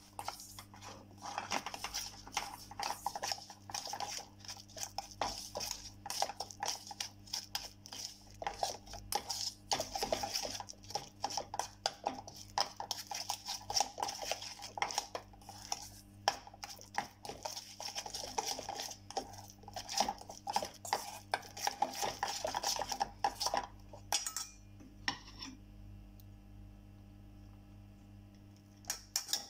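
A metal spoon mixing a thick spice paste in a stainless steel bowl: rapid clinks and scrapes of the spoon against the steel. They stop about 24 seconds in, and only a few single clinks follow.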